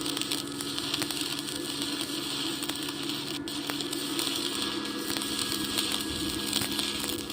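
Stick (arc) welding: the electric arc crackling and sizzling steadily with a fast spatter of tiny pops, over a steady low hum.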